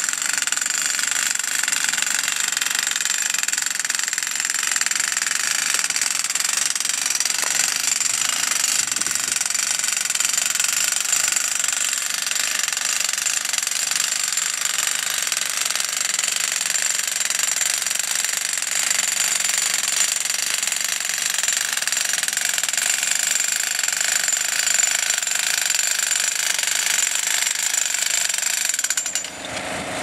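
Double jackhammers mounted in a crane-hung frame driving a steel fence post into the ground: a loud, fast, continuous hammering rattle that stops abruptly about a second before the end.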